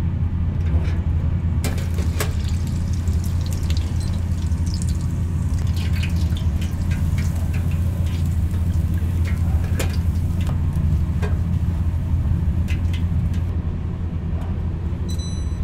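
Hot oil sizzling and crackling in an electric deep fryer as a breaded shrimp patty fries in the wire basket, over a steady low hum. A short electronic beep sounds near the end.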